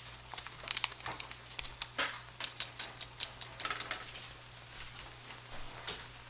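A utensil clicking and scraping against a pot as ramen noodles are stirred, in irregular light taps.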